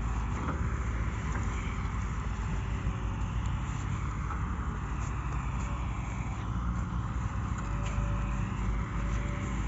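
Diesel engines of the tracked excavators and dump trucks at a sand-loading site running steadily, a low rumble.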